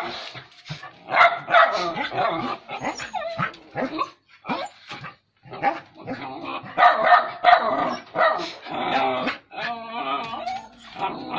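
Dog barking and yelping in repeated bouts while attacking a wild cat, with a wavering cry about ten seconds in.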